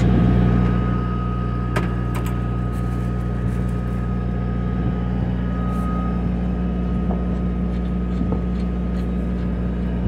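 Steady low hum of an idling engine, with a faint steady whine in the first half and a few light clicks.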